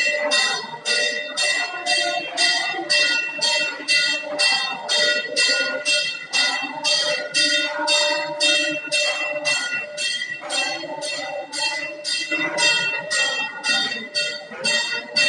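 Temple bell rung quickly and evenly, about three strokes a second, its ringing carrying over from stroke to stroke. Under it a group of voices sings an aarti hymn.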